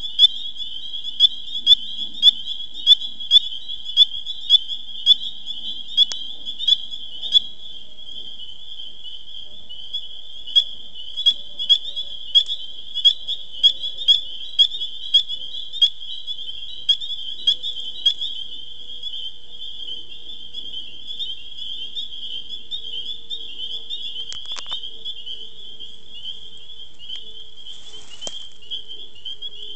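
Frogs calling: a steady high-pitched trilling chorus. Over it one louder, closer frog gives short sharp calls about twice a second, pausing briefly and then stopping about two-thirds of the way through.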